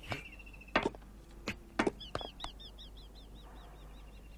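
Birds chirping in a cartoon's outdoor background ambience: a few sharp, separate chirps, then a rapid run of repeated chirps about two seconds in.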